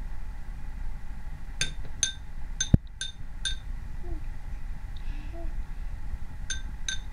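A metal spoon clinking against a small glass bowl, with a short ringing to each strike: five quick taps, then two more near the end. One duller, louder knock falls among the first taps.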